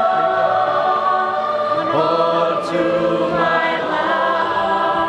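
Mixed choir of men's and women's voices singing, holding long chords that change about two seconds in.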